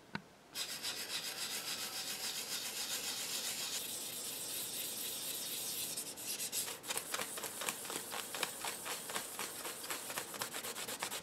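Fine 2000-grit sandpaper rubbing back and forth over a bakelite panel, sanding the epoxy filler in its holes down flush. A continuous scratchy rub starts about half a second in. In the last third it breaks into distinct quick strokes.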